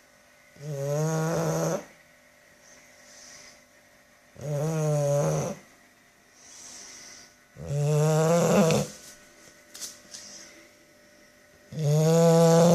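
Bulldog snoring in deep sleep: four loud, pitched snores about a second long, one every three to four seconds, with softer breaths in between.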